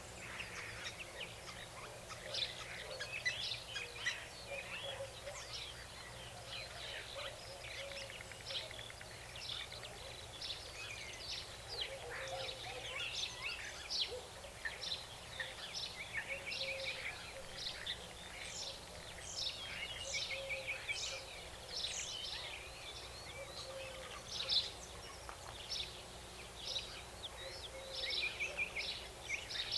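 A dawn-chorus-like din of many birds chirping and singing at once, short calls and trills overlapping without pause, over a faint steady low hum.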